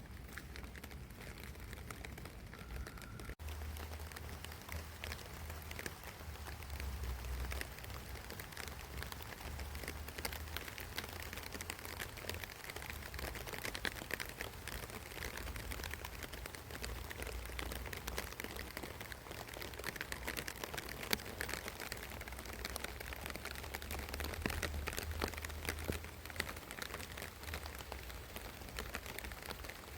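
Dense, steady crackling patter with a low rumble underneath.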